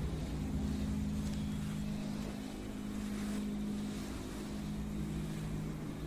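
A wobbling ceiling fan running at speed: a steady electric motor hum over a low rumble.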